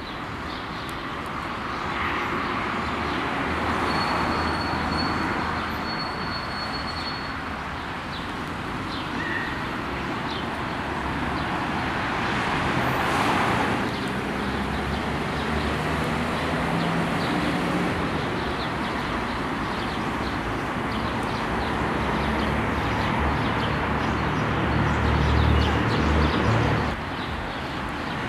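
Outdoor street ambience of road traffic: a steady wash of passing vehicles, with a low engine rumble that swells about three-quarters of the way through and then cuts off suddenly.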